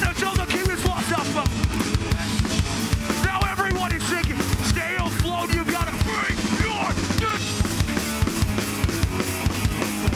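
Hardcore band playing live: fast, steady drumming on a full kit with distorted electric guitars and bass.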